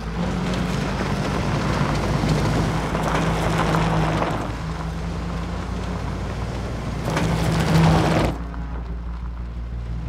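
Vintage car driving along a stony dirt road, its engine running and tyres on loose stones. The noise swells in the first few seconds and again about seven seconds in, then cuts off sharply near the end.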